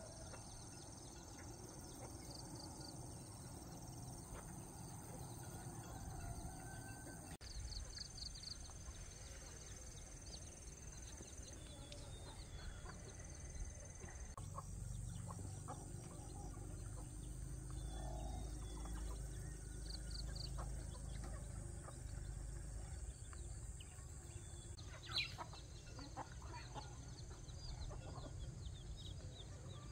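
Chickens clucking, with small birds chirping in short high runs over a low steady rumble. A single sharp knock comes near the end.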